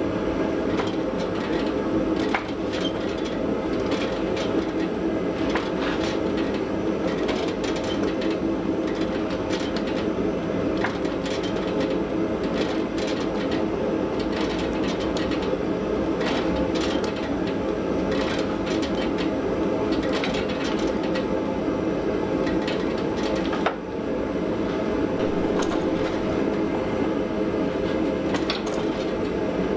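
Steady mechanical running noise with a constant hum, overlaid with irregular clicks and knocks, with a brief dip about two-thirds of the way through.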